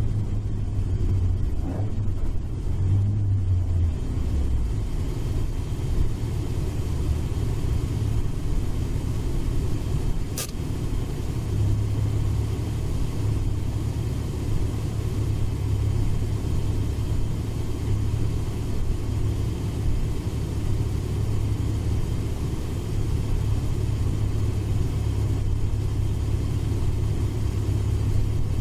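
Toyota AE86 Trueno's 5-valve 4A-GE four-cylinder engine heard from inside the cabin while driving: a steady low drone and rumble. The engine note shifts briefly in the first few seconds, and there is one short click about ten seconds in.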